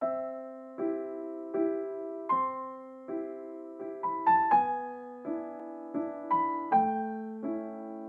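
Background music: a soft, slow piano melody of gently struck chords and notes, about one every three-quarters of a second, each fading before the next.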